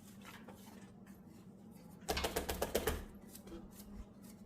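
A burst of rapid clicking and rattling about two seconds in, lasting about a second, then a few lighter clicks, over a faint steady hum.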